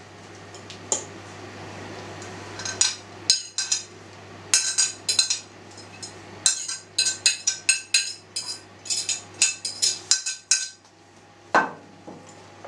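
A metal utensil clinking and scraping against a ceramic mixing bowl and plates, with a quick run of taps in the middle, as chopped green onion is scraped off a plate into the bowl and stirred in.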